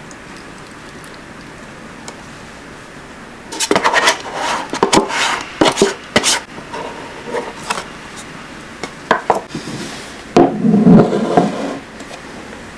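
A utensil scraping and tapping the last yogurt out of a paper yogurt carton into a glass bowl: a busy run of clicks and short scrapes starting about three and a half seconds in, then scattered clicks. Near the end comes a louder knocking and rubbing of kitchenware.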